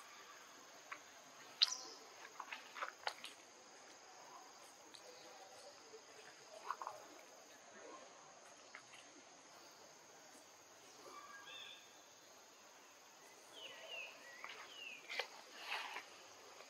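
Faint, steady, high-pitched insect drone, with scattered sharp ticks and several short chirping calls in the last few seconds.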